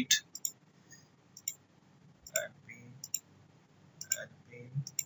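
Computer mouse clicking several times at irregular intervals, short sharp clicks.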